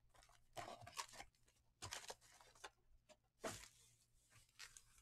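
Faint, short crinkling rustles of 2019 Topps Archives baseball card pack wrappers and their cardboard box being handled, about five at irregular intervals.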